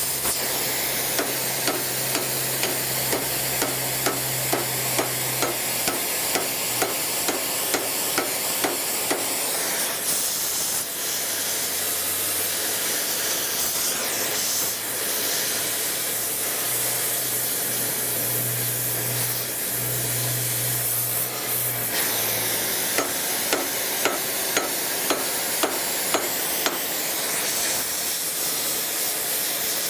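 Gas torch flame hissing steadily as it heats a small steel piece for bending. A light tick repeats about twice a second through the first third and again later on.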